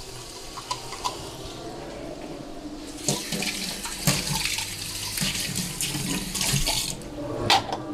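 Chopped onion sizzling in hot butter and oil in a pan, the sizzle growing louder about three seconds in. A sharp knock of a utensil near the end.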